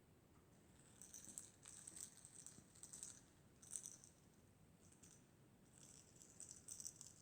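Kong Crackles Gulpz fish toy crackling as it is moved, its crinkly crackle filling giving off crisp, high crackles in several bursts with a short lull before the last cluster.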